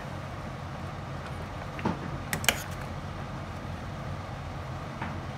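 Metal ladle stirring a pot of curry, with a few sharp clicks of the ladle against the stainless steel pot about two seconds in, over a steady low hum.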